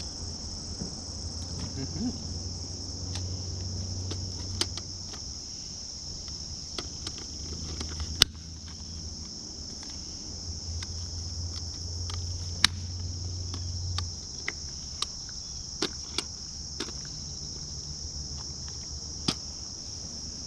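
Steady, high-pitched insect chorus with scattered sharp clicks and taps, the loudest about eight and twelve seconds in; a low hum underneath stops about two-thirds of the way through.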